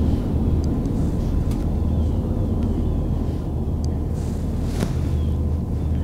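Steady low rumble, with a few faint short chirps and clicks above it.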